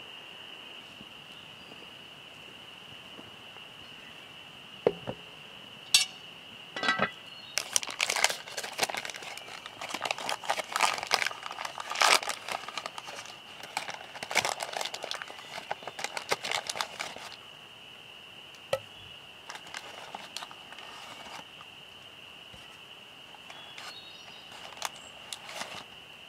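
A chorus of frogs trilling steadily and high-pitched throughout. From about six seconds in, for roughly ten seconds, close crinkling and crackling handling noises are louder than the frogs, with a few single clicks later on.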